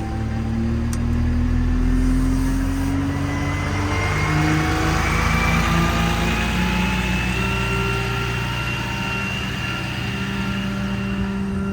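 Ram 5500's 6.7-litre Cummins diesel pulling the truck under acceleration, its pitch climbing and then stepping back down several times as the automatic transmission shifts.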